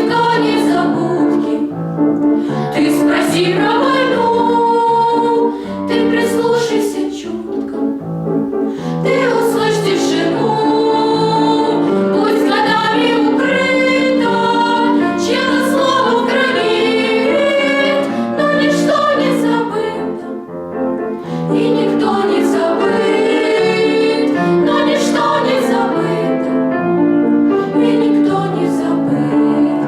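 A vocal ensemble singing together in harmony with piano accompaniment.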